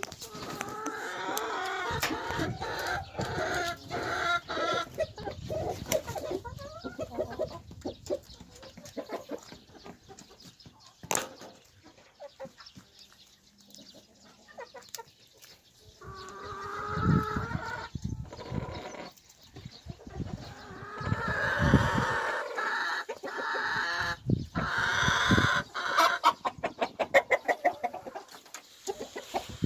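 Cheonggye hens clucking and calling on and off, louder in the second half, with a quick run of clucks near the end.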